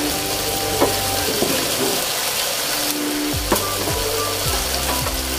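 Chicken frying and sizzling steadily in a pan as it is stirred, with two sharp clicks of the spoon against the pan, about a second in and past halfway.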